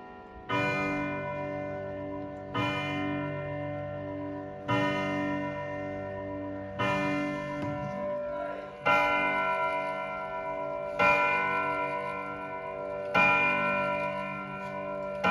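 Vedette French chiming clocks' gong rods striking the hour: slow, evenly spaced strikes about every two seconds, each ringing on and overlapping the next. From about nine seconds in the strikes come louder and brighter, from a second clock. The movements are still uncleaned and unoiled.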